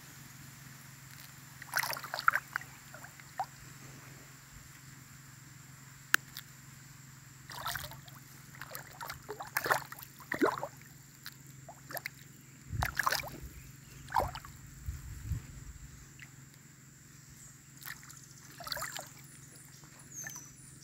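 Water sloshing and splashing in short, irregular bursts as fish churn the surface of a shallow pond, over a steady low hum.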